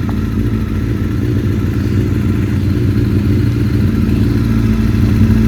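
Engine of a freshly rebuilt Honda CBR954RR Fireblade, a 954 cc inline-four, idling steadily and evenly after a brief rev.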